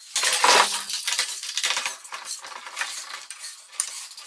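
Metal Merle band clamps clinking and rattling as the clamped hexagonal wood tube is handled and turned over on the bench, with rag wiping. A loud burst of scraping and rattling comes about half a second in, then smaller clinks and scrapes.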